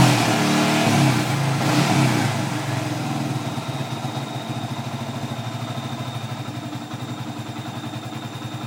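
Yamaha FZ150i's liquid-cooled single-cylinder four-stroke engine dropping back from a rev and settling into a steady idle within the first few seconds. A faint, steady high tone sits over the idle from about halfway through.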